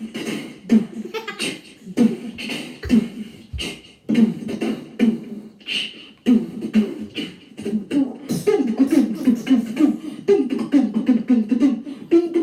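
A woman beatboxing into a karaoke-machine microphone: rhythmic mouth clicks and short voiced beats, which turn into quicker pitched vocal pulses in the second half.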